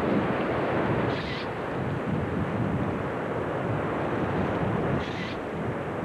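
Wind blowing hard across the microphone in a blizzard, a steady rushing noise, with two short higher hisses about a second in and near the end.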